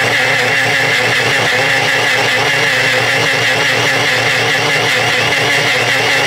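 Personal blender running at a steady, even pitch, its cup held pressed down on the motor base, blending a banana, peanut butter and almond-milk smoothie.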